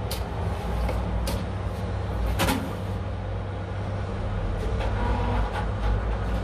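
Steady low hum, with a few short clicks, the loudest about two and a half seconds in.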